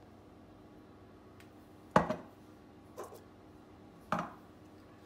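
Three sharp clinks and knocks of kitchenware about a second apart, the first the loudest, as a teaspoon, glass jars and a ceramic bowl are handled on a kitchen worktop.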